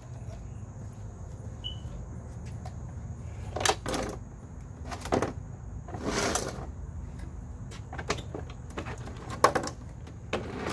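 Scattered knocks, scrapes and clatter of a walk-behind lawn mower and plastic milk crates being handled as the mower is lifted down off the crates onto the ground, with a sharp knock near the end.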